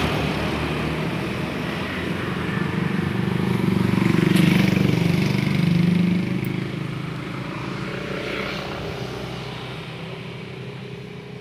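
A motorcycle engine passing on the road. Its steady drone grows to its loudest about four to six seconds in, then fades away.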